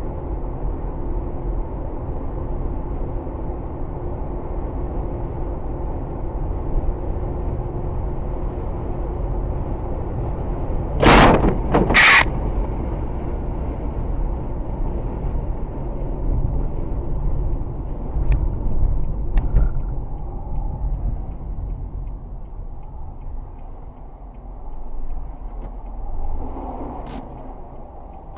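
Steady road and engine rumble inside a car at highway speed. About eleven seconds in come two loud bangs a second apart as the hood flies up and strikes the windshield, then the rumble gradually dies down as the car slows.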